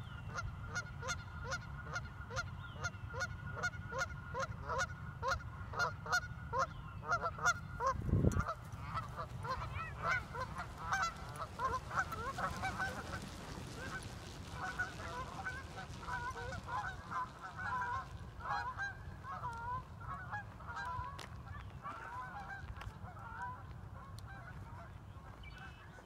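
A flock of geese honking over and over, first in an even run of calls, then in a thicker tangle of overlapping honks from about ten seconds in as a puppy chases them. A low rumble runs underneath, and there is a single thump about eight seconds in.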